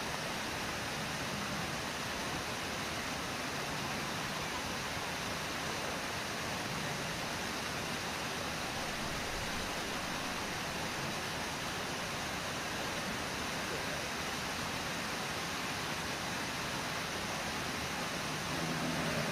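Steady rushing roar of Brooks Falls, a low waterfall with white-water rapids below it on the Brooks River.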